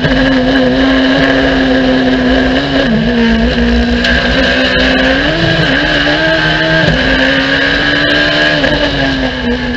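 Radical SR1 race car engine running hard, heard from the cockpit: its note falls as the car brakes and downshifts into second gear, climbs again under acceleration, then drops abruptly at an upshift to third about seven seconds in.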